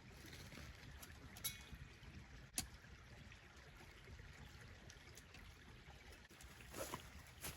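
Near silence: a faint low rumble with a few sharp clicks, about a second and a half in, again at two and a half seconds, and near the end.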